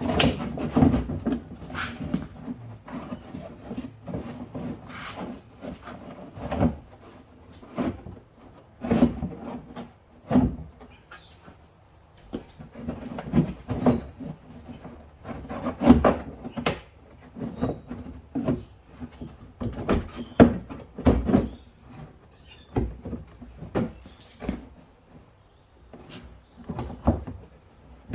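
Irregular knocks and clatter of hand work on the car's wheel arch: the plastic inner wheel arch liner being pushed into place and its nuts and bolts fitted.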